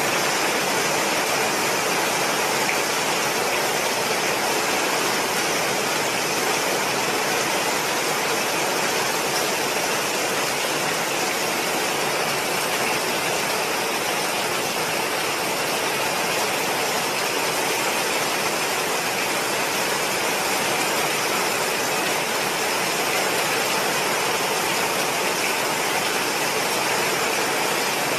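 Hurricane wind and heavy rain: a steady, even noise that keeps up without letting up or changing.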